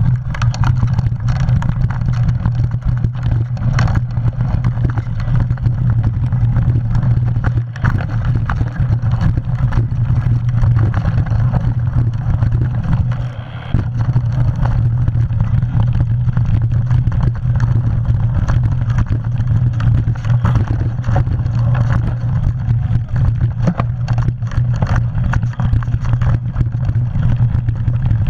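Mountain bike riding fast down a dirt singletrack: steady wind rumble on the microphone, with tyres on dirt and the bike clattering and rattling over bumps.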